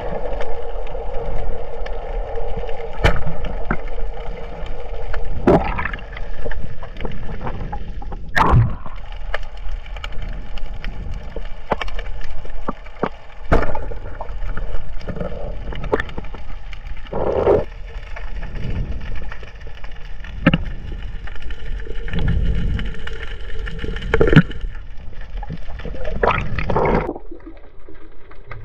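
Underwater sound picked up by a submerged camera: a steady multi-tone hum over a low rumble of moving water, broken by scattered sharp clicks and knocks. The hum fades out shortly before the end.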